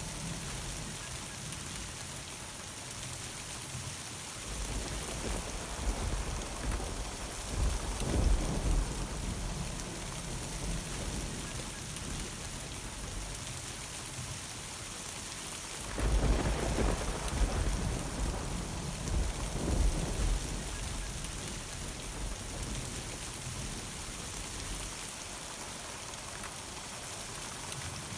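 Steady rain of a thunderstorm, with two rolls of thunder. The first builds about four seconds in and peaks a few seconds later. The second starts suddenly about sixteen seconds in and rumbles for several seconds.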